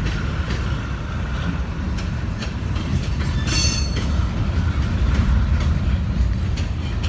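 Norfolk Southern freight cars rolling past with a steady low rumble and scattered wheel clicks on the rails. There is a brief high-pitched wheel squeal about three and a half seconds in.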